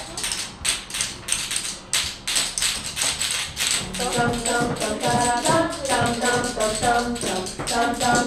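Music with fast, rhythmic shaker- or tambourine-like percussion. A melody joins in about four seconds in.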